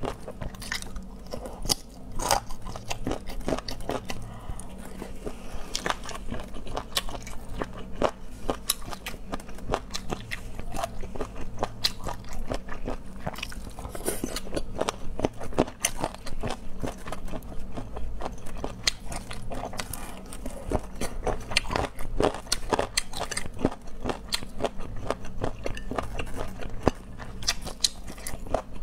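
Close-miked eating: biting, chewing and crunching through pieces of a sour-spicy, hand-deboned dish, with many small irregular wet crackles and clicks and a faint low hum beneath.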